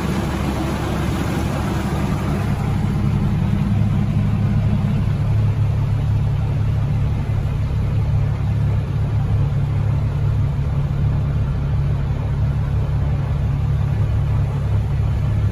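A motor running steadily, carrying the camera through floodwater. Its low hum drops in pitch about four seconds in, over a steady wash of noise.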